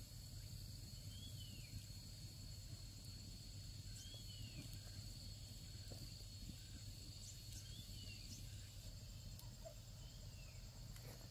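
Quiet outdoor ambience: a steady high insect drone, with a bird's short rising-and-falling call repeating about every three seconds, four times, over a low steady rumble.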